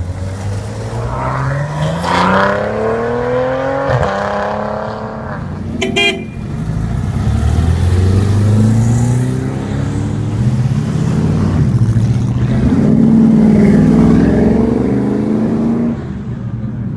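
Supercar engine accelerating past with a rising note, a click as it changes gear, and a short horn toot about six seconds in. Then engine noise again, swelling a second time before cutting off suddenly near the end.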